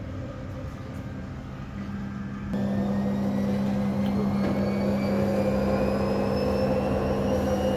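Front-loading washing machine's brushed drum motor, running on two newly replaced carbon brushes, winding up into spin. A steady hum gets louder about two and a half seconds in, and from there a whine rises slowly in pitch as the drum speeds up.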